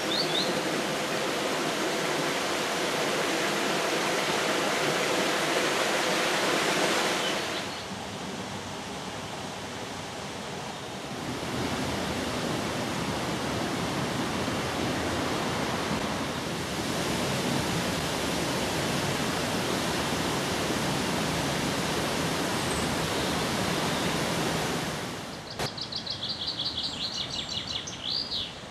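Steady outdoor rushing noise, wind on the microphone or running water, that jumps in level several times. Near the end comes a bird's rapid trill of high chirps.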